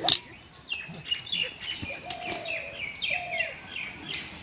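Birds chirping, with many short falling calls and a lower, held call repeated about once a second. A sharp click comes right at the start and is the loudest sound.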